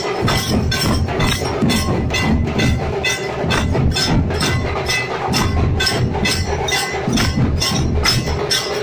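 Many pairs of small brass hand cymbals (zanj) clashed together in unison in a steady rhythm, about two to three clashes a second, with drums beating underneath.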